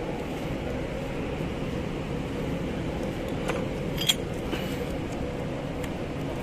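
Metal folding grapnel anchor being handled and opened out: a few light metallic clicks, the sharpest about four seconds in, over a steady low hum.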